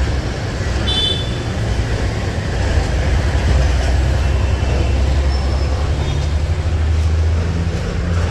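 City street traffic noise with the low rumble of a motor vehicle's engine close by, swelling about three seconds in and easing near the end.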